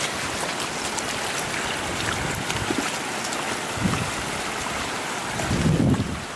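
Shallow floodwater rushing over a road: a steady hiss of flowing water, with a couple of low rumbles about four and six seconds in.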